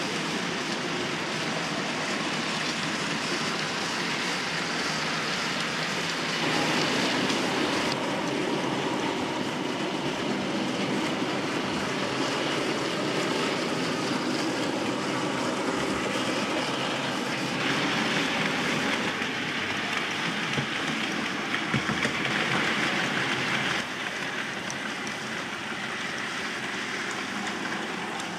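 Model goods train running on the layout's track, an OO gauge Bachmann LMS Class 2 2-6-0 locomotive hauling a rake of wagons: a steady rolling rumble and rattle of small wheels on rails, louder at times as the train comes nearer.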